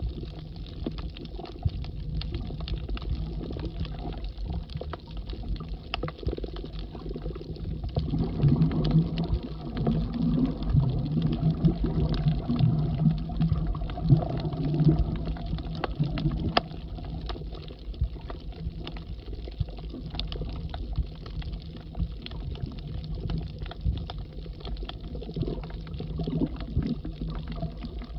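Underwater ambience heard through a submerged camera: a steady low rumble of water with many scattered faint clicks. A louder stretch of low water noise runs from about eight to sixteen seconds in.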